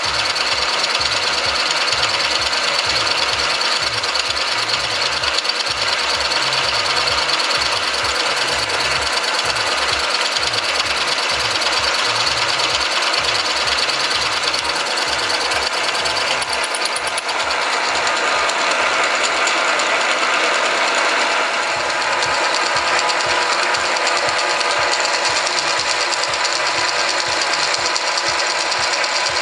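VM-130 milling machine running and cutting metal, a steady machine noise over a fast, even low knocking rhythm. The sound changes slightly about two-thirds of the way through.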